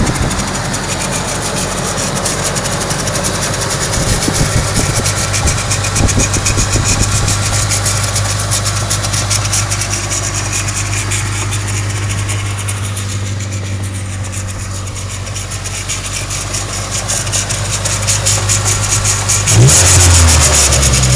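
Nissan 240SX's KA24E 2.4-litre inline-four running at a steady idle with a fast, even ticking over it: the unexplained noise the owner is trying to diagnose. Near the end the engine speeds up and gets louder.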